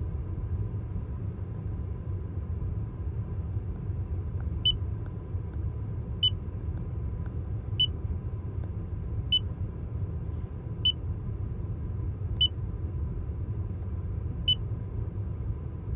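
Handheld OBD2 scanner beeping as its arrow button is pressed to scroll, seven short beeps about every second and a half starting about five seconds in, over a steady low rumble.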